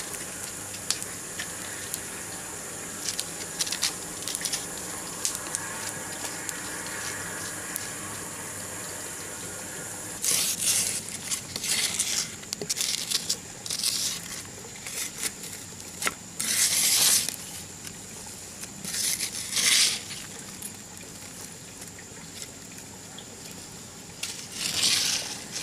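Wood campfire with a bamboo cooking tube laid in the coals: crackling with scattered sharp pops, then, from about ten seconds in, a string of short loud hisses.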